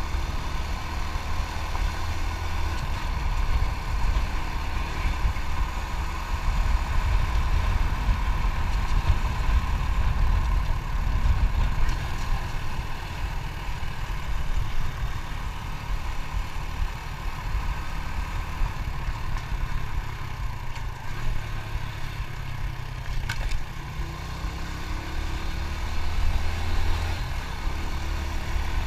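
Motorcycle engine running as it is ridden along, with a steady low rumble throughout.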